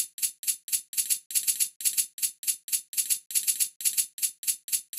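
Tambourine sample from a Maschine MK3 drum kit playing back a looped pattern quantized fully to the grid: a fast run of short bright jingle hits, about five or six a second.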